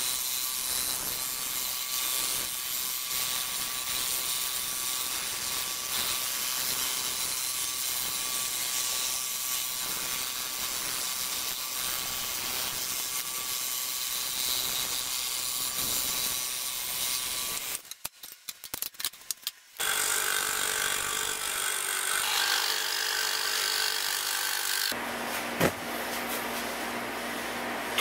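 Scroll saw running and cutting through a wood board, a fast steady buzz of the reciprocating blade with a thin steady whine. It drops out briefly about two-thirds through, then resumes with a changed tone; near the end a lower steady hum comes in, with one sharp click.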